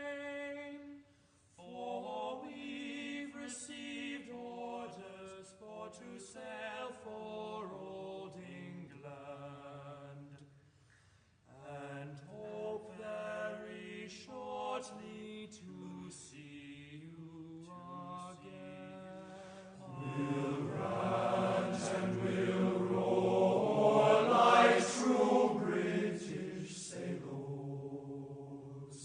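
Slow background music of long held, chant-like tones that change every second or two, swelling louder about two-thirds of the way through and then easing off.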